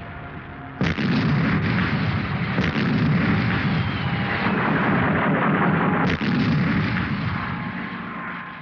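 Artillery fire and shell bursts: a continuous din of gunfire, with two sudden loud blasts about one second in and about six seconds in.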